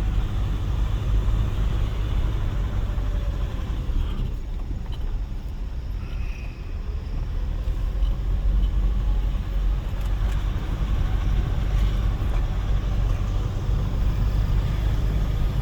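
Nissan pickup's turbocharged engine working hard under load up a steep climb, a steady rumble mixed with tyre and road noise; the turbocharger stays spooled up. The level eases briefly a few seconds in, then builds again.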